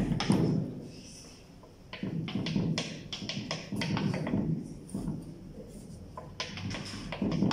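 Chalk tapping and scratching on a blackboard in short clusters of sharp strokes, as tick marks and dashed lines are drawn on a graph.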